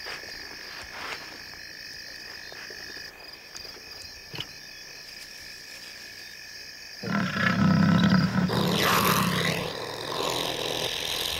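A steady chorus of night insects, then about seven seconds in, loud snarling and growling suddenly breaks out as a leopard attacks a honey badger.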